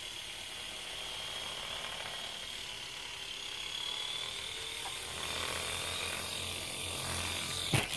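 Air Hogs Twin Thunder toy R/C tandem-rotor helicopter in flight, its small electric motors and twin rotors whirring with a steady high whine. Near the end the whine cuts off with a sharp knock as the helicopter comes down.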